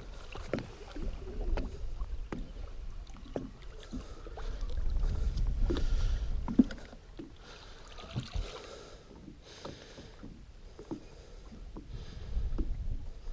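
Wind rumbling on the microphone in gusts, with water lapping and splashing around a fishing boat and a few light knocks and clicks, the sharpest a little past halfway.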